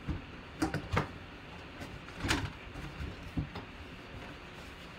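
A cardboard box being opened by hand: the lid flaps and a paper insert are lifted off a plastic case, giving a series of short light knocks and scrapes, the strongest about halfway through.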